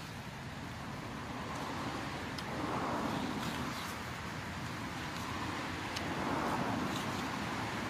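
Road traffic noise, swelling as cars pass about three seconds in and again near the end, with a few faint wet clicks of watermelon being chewed.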